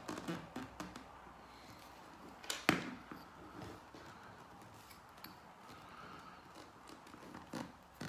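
Plastic pry tool working at the seam of an iPod Classic's metal back case: light clicks and scrapes, with one sharp click about two and a half seconds in and another near the end.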